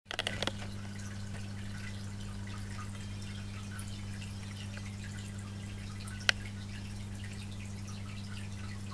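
Aquarium internal filter (Fluval U1) running: a steady low hum with water trickling and dripping. One sharp click about six seconds in.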